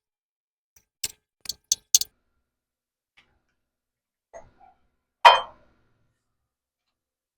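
Small metal hardware (washers and clamp bolts) clinking together: four quick sharp clicks about a second in, then a faint knock and one louder clank a little after the middle.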